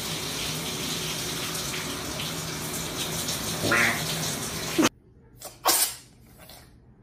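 A shower running with a steady hiss, and a man breaking wind loudly in it, one drawn-out fart of about half a second, a little under four seconds in. The shower cuts off suddenly, and a cat then coughs in a few short, sharp bursts.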